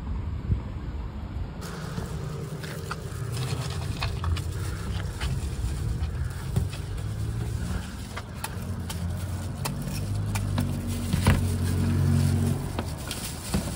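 Street traffic with a motor vehicle's engine running nearby, its pitch shifting and louder near the end. Short clicks and knocks of knives and fruit being handled on a metal fruit cart come through it.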